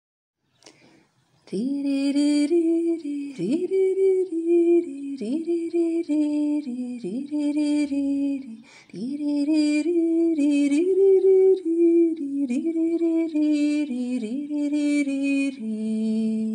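A woman's voice singing a slow melody without clear words, each note sliding up into pitch. It starts about a second and a half in.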